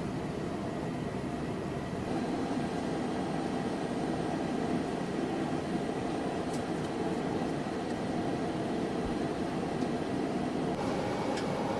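F-22 Raptor's Pratt & Whitney F119 turbofan engines running steadily during startup: an even rushing roar with a faint, steady high whine over it.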